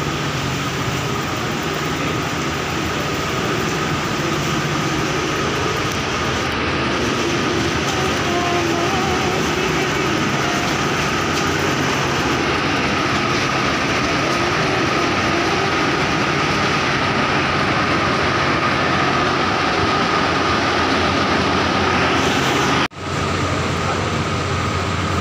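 Steady, loud machinery hum over a rushing noise, with a constant high whine running through it. It drops out for an instant near the end.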